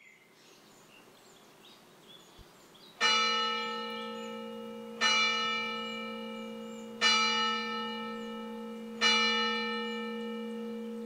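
Church bell tolling: four strikes about two seconds apart, beginning about three seconds in, each one ringing on with a long low hum that carries into the next. Faint high chirps come before the first strike.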